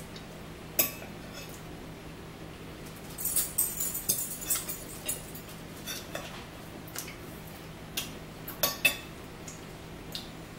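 Metal forks clinking and scraping against plates and a bowl while eating: one sharp clink about a second in, a quick run of clinks between about three and five seconds, and a few more, the loudest near the end.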